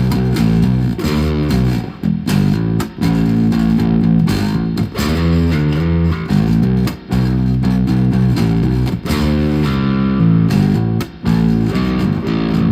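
Electric bass guitar played on its bridge pickup with a little saturation-style distortion: a riff of plucked notes, broken by short pauses between phrases.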